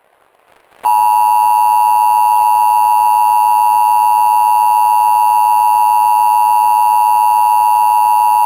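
Emergency Alert System attention signal: a loud, steady electronic alarm tone that starts about a second in and holds unbroken, with a slight even pulsing.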